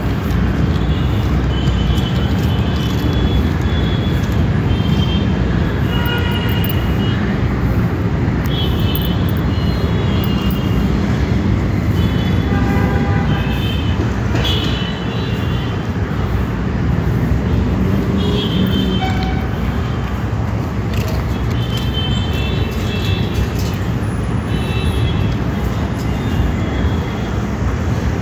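Steady low rumble of road traffic, with short high-pitched chirps now and then.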